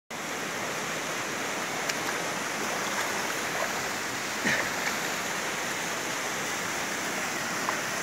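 Steady rush of a small waterfall's cascades pouring over rock into a pool, with a few brief faint sharper sounds over it, the most noticeable about halfway through.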